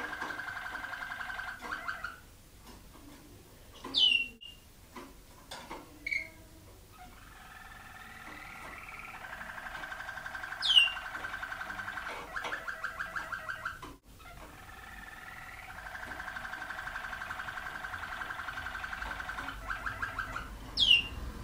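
Waterslager (Malinois) canary song: long, low, rolling and bubbling tours that run for several seconds each and break into rapid pulsed rolls at their ends. Three short, sharp whistles sweep steeply down in pitch, about four seconds in, about eleven seconds in and near the end.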